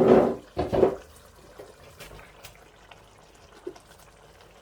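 Washed, wet chopped vegetables tipped into a pot of soup: two loud wet dumps in the first second, the first the louder, then faint small clicks.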